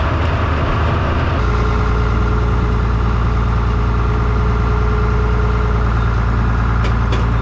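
Farm tractor engine running steadily. About a second and a half in, its note changes and then holds steady, with a thin steady whine.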